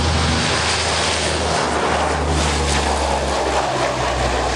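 C-130H Hercules transport taking off and passing low, its four Allison T56 turboprop engines running at a steady low propeller hum over a broad rush of engine and air noise.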